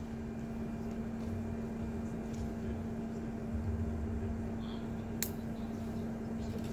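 Steady low machine hum at one unchanging pitch over a faint rumbling background, with a single sharp click about five seconds in.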